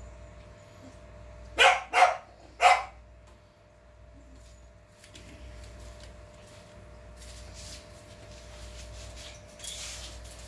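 Three short barks from a month-old puppy, quickly one after another, about two seconds in.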